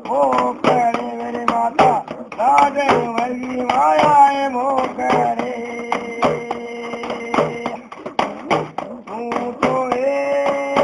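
Music: a man singing in Hindi over a steady drone and a regular drum beat. The sung line bends and moves through roughly the first half, then gives way to held tones while the beat carries on.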